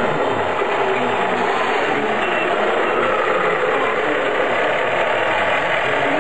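Steady engine-like idling noise from a radio-controlled model truck.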